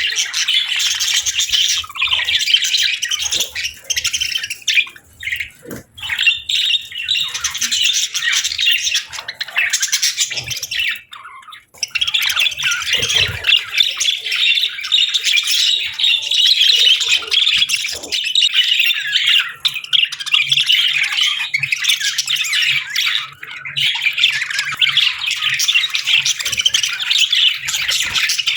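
A group of budgerigars chirping and chattering almost without a break, with a couple of short lulls.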